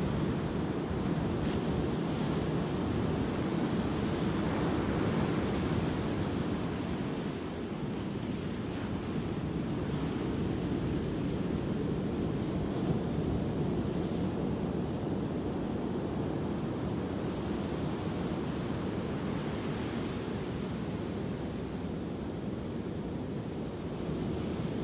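Ocean surf breaking on a sand beach, a continuous rushing wash of waves that swells and eases slightly, with wind rumbling on the microphone.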